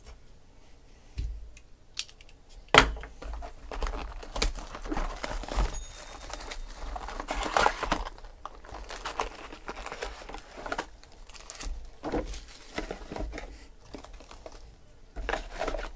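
A cardboard Panini Select trading-card box being opened by hand, with a sharp snap about three seconds in, then the foil card packs inside crinkling and rustling as they are pulled out and piled up.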